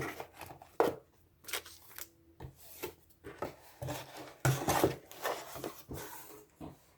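Contents being lifted out of a cardboard shipping box: paper and cardboard rustling and scraping in short, irregular bursts.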